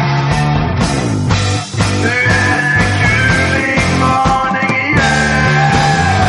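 Loud rock music with a moving bass line and sustained melody lines.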